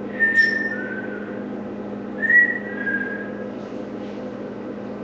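A person whistling a short two-note call, a high note stepping down to a lower one, twice, as a sample for a reply to copy. A steady low hum runs underneath.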